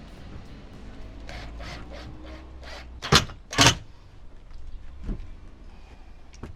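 A run of light knocks, then two loud sharp thuds about three seconds in, and a few fainter knocks near the end.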